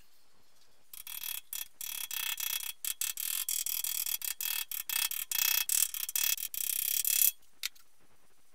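Pliers squeezing small steel clips onto the metal flange of a car fuel tank: a shrill metal-on-metal squeaking and scraping that comes in rapid, choppy bursts for about six seconds and stops suddenly, with one short squeak just after.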